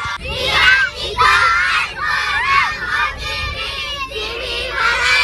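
A busload of schoolchildren shouting and cheering together in loud, excited bursts, many voices at once.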